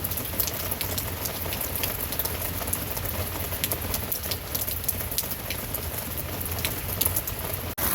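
Steady rain falling, a dense patter with many separate drops ticking. It cuts out briefly near the end.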